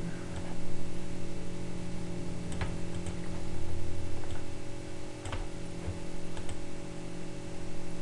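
A few sharp computer mouse clicks, spread over several seconds, over a steady low electrical hum.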